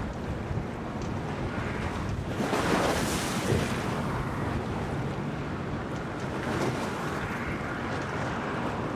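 Storm wind and waves washing in, with wind buffeting the microphone. A louder surge comes about two and a half seconds in.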